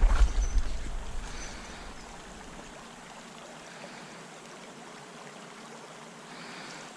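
Shallow river water running steadily over a gravel bed, an even rushing sound, with a loud low rumble in the first second or so.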